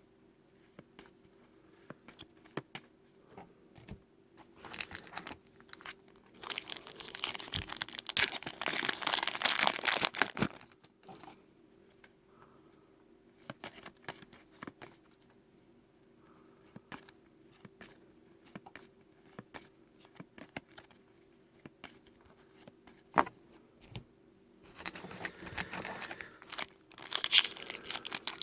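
Foil wrapper of a trading card pack crinkling and tearing open, in two spells of crackly rustling: one about seven seconds in, another near the end. Between them come scattered light clicks and taps.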